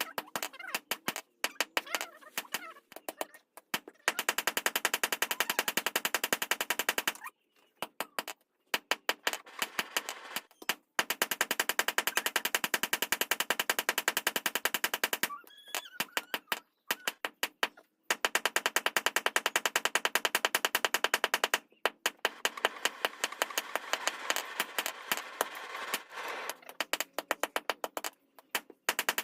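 Mechanical power hammer striking hot leaf-spring steel in fast, evenly spaced blows, many a second, in runs of a few seconds with short stops between them.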